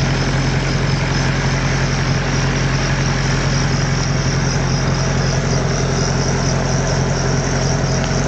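Ferguson FE35 tractor engine running at a steady, unchanging speed, a constant low hum with no revving.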